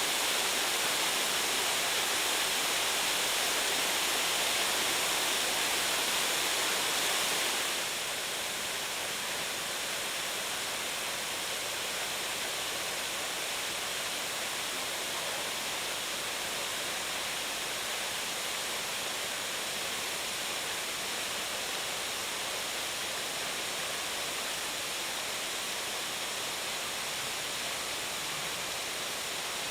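Steady rushing of a waterfall on the Kido River. The sound drops a little and dulls about eight seconds in.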